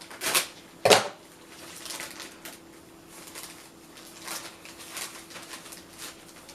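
Sticker packs being handled and opened by hand: crinkly rustling of paper and plastic packaging, with two loud sharp crackles in the first second and softer rustles after.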